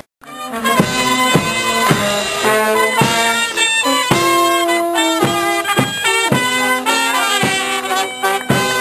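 Brass band playing a march, with a percussion stroke keeping time about twice a second. The sound cuts in a moment after a brief dropout.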